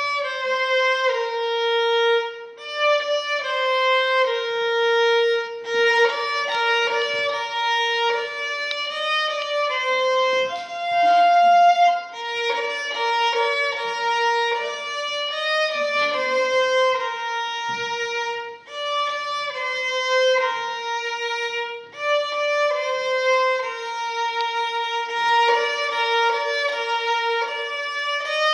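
Solo violin, bowed, playing a simple song melody note by note, with brief breaks between phrases.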